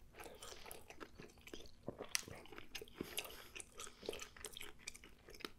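Close-up mouth sounds of a person chewing and licking sauce off his fingers: soft, irregular wet smacks and clicks.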